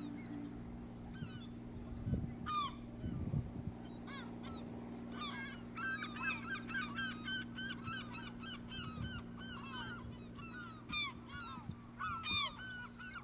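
A flock of birds calling: many short, hooked chirps overlapping, sparse at first and thickening into constant chatter from about five seconds in, over a steady low hum.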